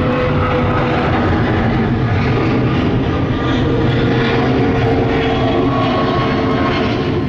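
Twin-engine Boeing 777 jet airliner climbing out after takeoff. Its engines make a loud, steady rumble with a faint whine, and the tone sinks slightly as the aircraft passes overhead.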